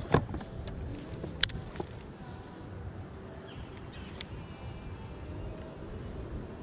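Fishing rod and baitcasting reel being handled: a sharp click just after the start and a smaller one about a second and a half in, then the reel being cranked quietly to bring in the line.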